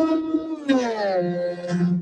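Heavily slowed-down voice, stretched into long pitched tones. Near the middle it slides down in pitch, then holds a low drone.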